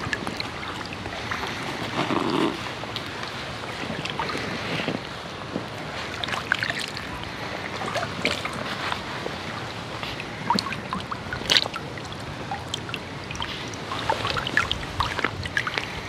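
Shallow water sloshing and splashing as a person wades and moves hands through it, with many small drips and splashes scattered throughout.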